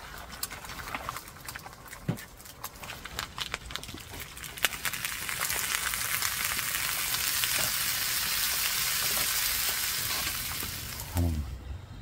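Eggs frying in hot oil in a shallow pan, crackling with small pops. About five seconds in the sizzle grows louder and denser as sausages go into the pan, then it fades out near the end.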